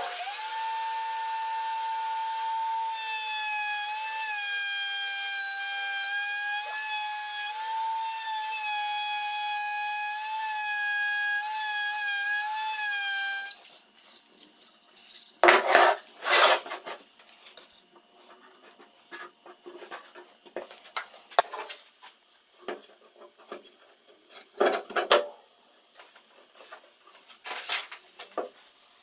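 Router running at high speed with a steady whine as a bearing-guided bit routes the edge of a plywood block, its pitch wavering slightly as the wood is fed; it cuts off abruptly about halfway through. After that, scattered knocks and clatter of wooden pieces handled on a workbench.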